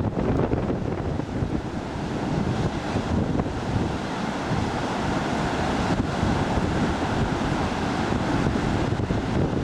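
Rough storm surf crashing on the beach, driven by a tropical storm, with strong gusty wind buffeting the microphone.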